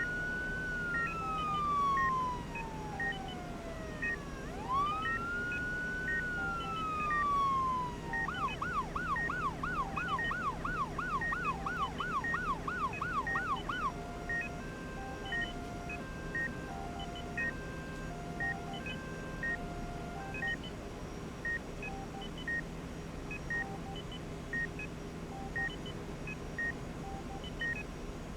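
An emergency-vehicle siren wails in two long rise-and-fall sweeps, then switches to a fast yelp of about three cycles a second for some six seconds and stops. Medical equipment beeps about once a second throughout. After the siren, stepped patterns of monitor alarm tones carry on, over a steady low hum.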